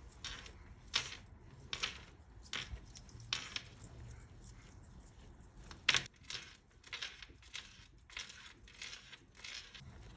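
Light, irregular clinks and rustles of kitchen handling during home baking, roughly one or two a second, with one sharper knock near the middle.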